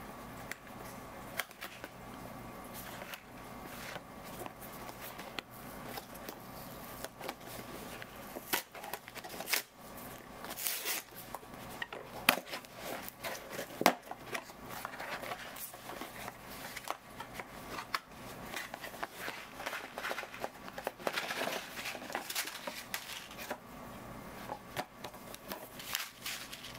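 A cardboard product box being opened and unpacked by hand: scattered taps, scrapes and rustles of card, paper and small plastic bags, with two sharper knocks near the middle.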